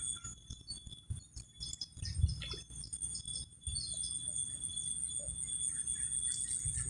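Insects chirring steadily in a high, thin drone, over a low rumble and a few scattered clicks and knocks.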